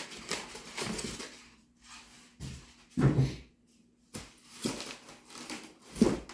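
Rustling and rubbing as foam RC plane parts are moved about in their packaging box, with a knock about three seconds in and another near the end.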